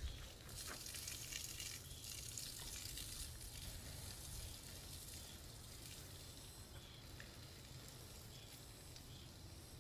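Faint hiss of a garden hose spraying water over a car, strongest in the first few seconds and then fading, over a steady low rumble.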